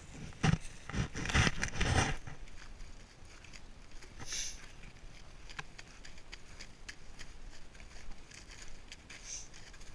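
Handling noise on a body-worn camera: a few loud knocks and scrapes in the first two seconds as it is moved, then soft rustling with a few faint clicks.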